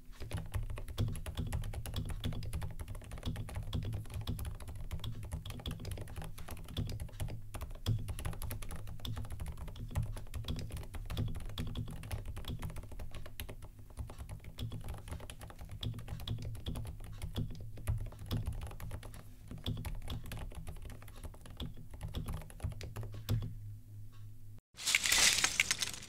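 Continuous fast typing on a Keydous NJ98 hot-swap mechanical keyboard fitted with light, rubber-dampened Kailh BOX Deep Sea Islet switches: a dense run of keystroke clicks. Near the end the typing stops and a short, loud burst of noise follows.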